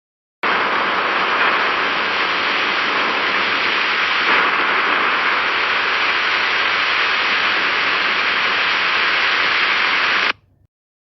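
Heavy rain: a dense, steady hiss of downpour. It starts abruptly about half a second in and cuts off suddenly near the end.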